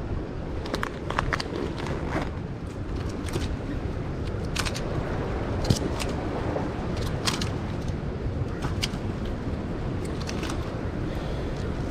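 Steady low outdoor rumble with scattered short, sharp clicks and ticks as fishing hand line, pliers and tackle are handled.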